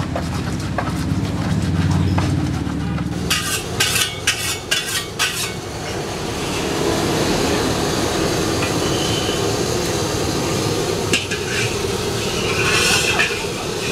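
Sharp clanks and knocks of cooking utensils, then the steady roar of a gas wok burner, with a metal spatula knocking and scraping in the wok near the end.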